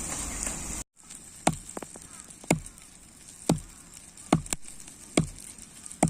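A series of sharp knocks, about one a second, with two in quick succession near the middle, like chopping or hammering.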